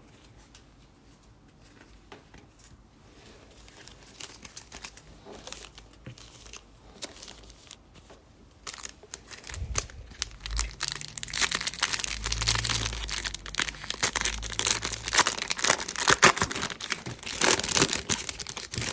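A trading-card pack wrapper crinkling and being torn open. It is faint and sparse at first, then turns louder and busier for roughly the second half.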